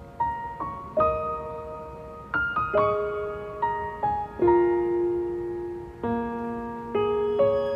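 Background music on solo piano: slow single notes and chords, each struck and left to ring out.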